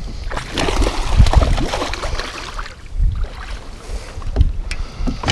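Wind buffeting the microphone over open water, with a low rumble and a few scattered knocks.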